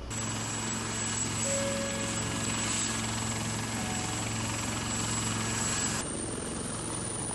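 Military helicopter running on the ground with its rotors turning: a steady low rotor hum under a high turbine whine. The high whine drops away about six seconds in.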